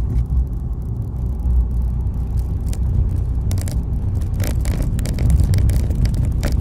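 Road noise inside a moving vehicle's cabin: a steady low rumble of engine and tyres, with many short rattles or knocks from about halfway through.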